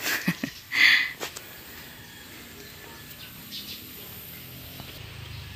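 Quiet outdoor ambience with a faint low hum. About a second in comes one short, high-pitched chirp-like sound, with a few light knocks around it.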